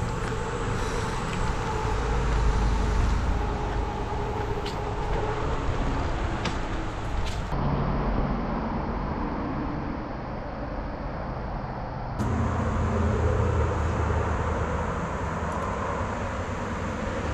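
Steady rumbling noise of wind on the microphone and bicycle tyres rolling on the trail while riding, with a few faint clicks. The sound changes abruptly twice, about halfway through and again a few seconds later.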